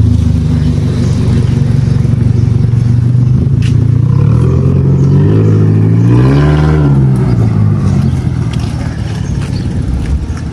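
Toyota Corolla sedan pulling away with its exhaust butterfly valve open, a loud, raspy engine note. The pitch holds steady at first, climbs as the car accelerates to a peak about six and a half seconds in, then falls and fades as it drives off.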